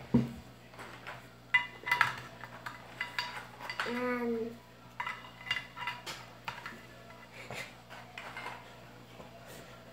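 Light clinks and knocks of dry biscuits against stainless steel bowls as they are picked out of one bowl and laid in a metal serving dish, with a sharper knock at the very start. A child's short vocal sound comes about four seconds in.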